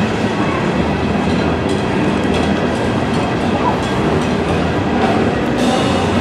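Empty coal cars of a Norfolk Southern freight train rolling past close by: a steady rumble with faint wheel clicks over the rail joints.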